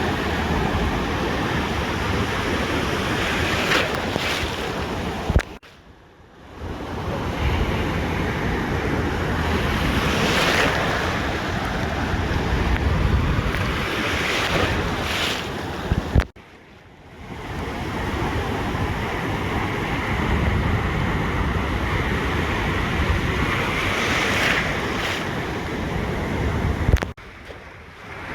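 Ocean surf washing on a beach, a steady roar with waves surging every few seconds, under wind rumbling on the microphone. The sound drops out abruptly three times for about a second, each time just after a short spike.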